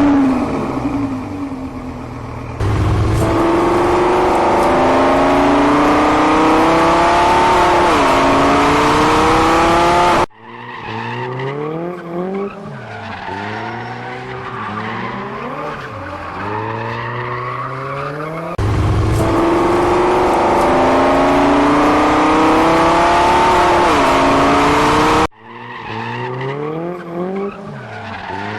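Racing car sound effect: an engine revving up in pitch again and again as if through the gears, over tyre noise and squeal, alternating abruptly with a quieter passage of shorter revs and skids; the same recording plays twice over as a loop.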